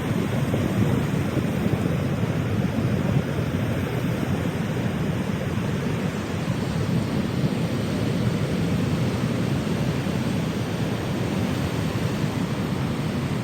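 Ocean surf making a steady roar, mixed with wind rumbling on the microphone.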